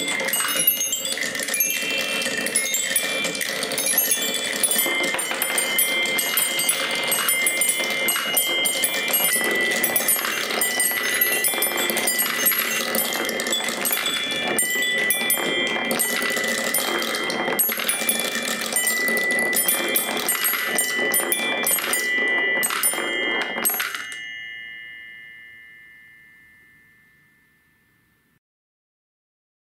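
Many glass marbles rolling and clattering down a wooden Quadrilla marble run and dropping into a plastic catch bowl: a dense stream of clicks and knocks mixed with ringing chime notes. The clatter stops abruptly near the end and the ringing fades out.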